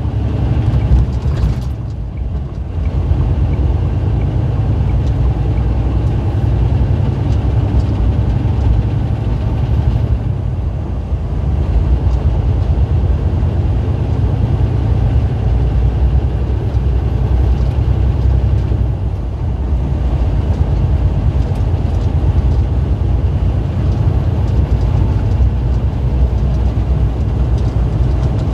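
Steady low rumble of engine and road noise heard from inside a vehicle's cab while driving at highway speed.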